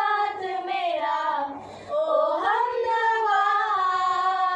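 Four girls singing together without accompaniment, holding long notes, with a short break for breath a little under two seconds in.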